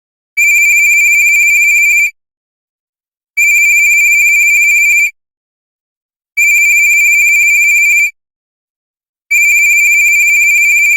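Old phone's electronic ringtone: one high tone ringing four times, each ring a little under two seconds long and starting about every three seconds.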